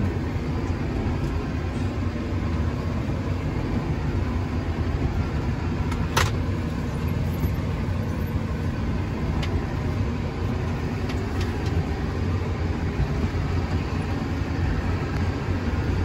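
Loader tractor's engine running steadily, heard from inside the cab while it drives through snow, with one sharp knock about six seconds in.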